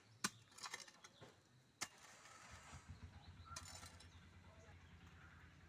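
Hand hoe chopping and scraping into dry, stony soil: a few sharp chops, the loudest about a quarter second and two seconds in, then a scraping rasp. A low, even rumble runs underneath from about halfway in.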